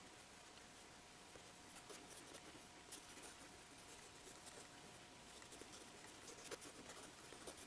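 Faint scratching and light ticking of a red Prismacolor Col-Erase pencil sketching on mixed-media sketchbook paper, barely above room tone.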